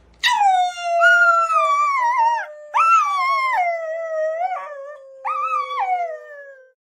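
Dog howling: one long howl that starts high, settles lower and sags slowly, with its pitch swelling up and falling back three times.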